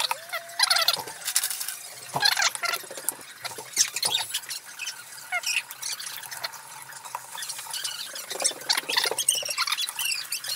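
Hands handling and tying thin string around a small plastic drone: scattered clicks, scratches and rustles, with a few short high squeaks and chirps.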